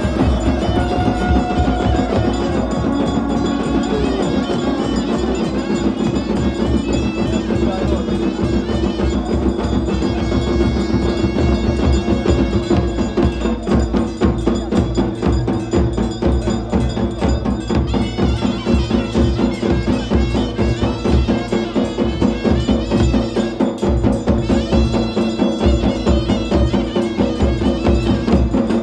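Traditional Himachali procession music: steady drumming with ringing percussion under a held drone of wind instruments.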